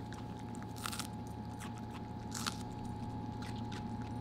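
A Pomsky dog chewing a raw bok choy stem, with a few crisp crunches.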